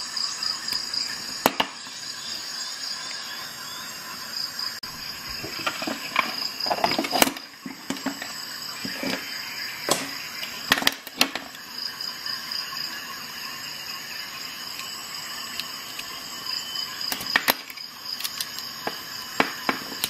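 Scattered sharp metal clicks and taps as a tool adapter and bit socket are handled on a Leatherman Surge multi-tool, over a steady high-pitched pulsing whine.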